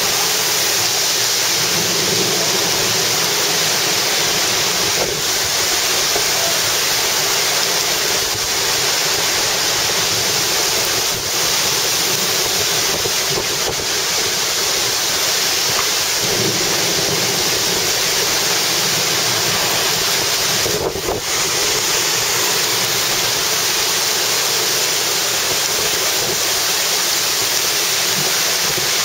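Heavy wind-driven rain and strong gusting wind in a severe storm: a loud, steady rushing noise.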